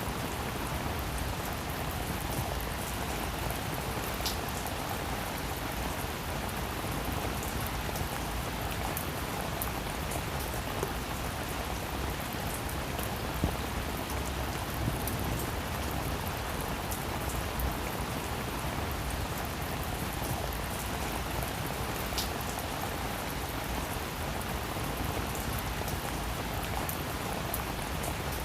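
Steady rain falling on a roof, an even hiss with scattered sharper drop taps.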